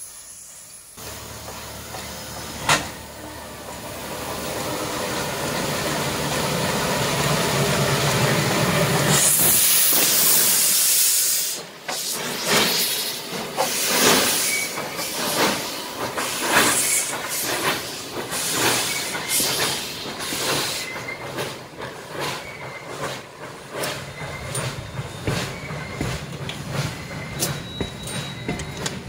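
Steam locomotive blowing off steam with a loud hiss that builds to a peak, with a single sharp knock about three seconds in. Then come the engine's exhaust chuffs, about one a second, as it pulls its train away, followed by quicker clicking as the passenger coaches' wheels roll over the rail joints.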